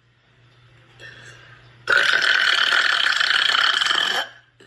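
A woman's single long, loud burp, starting about two seconds in and lasting about two and a half seconds.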